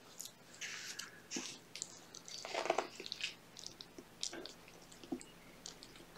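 Kittens eating wet cat food from a plate and off a person's fingers: soft, irregular chewing with a scatter of small wet clicks, and one brief louder noise about two and a half seconds in.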